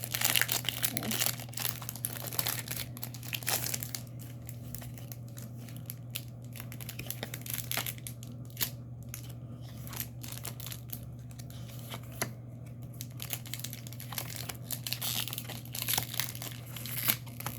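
A trading-card booster pack wrapper crinkling and tearing as it is worked open by hand, in busy spells near the start and again near the end with scattered crackles between.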